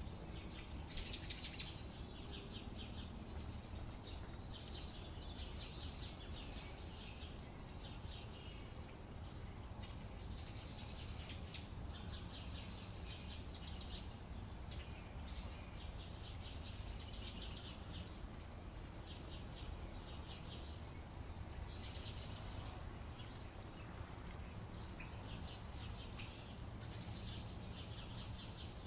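Wild birds chirping and calling every few seconds in short bursts, over a steady low background rumble.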